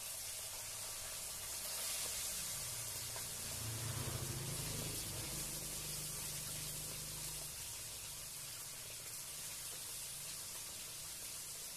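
Small seasoned pieces of salem fish frying in hot oil in a wok: a steady sizzle as more pieces are slid in. A low hum swells and fades in the middle.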